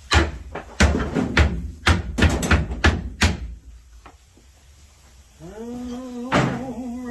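A quick run of hard knocks and clatters, about a dozen in the first three and a half seconds, like parts being handled and set down. Then, about two seconds later, a long drawn-out pitched call holding one steady note starts.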